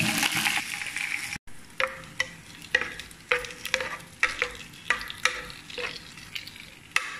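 Oil sizzling in a frying pan with a tempering of mustard seeds, dried red chillies and curry leaves. It cuts off about a second and a half in. Then a spoon stirs curry in a metal cooker, knocking against the pot about twice a second with a light metallic ring.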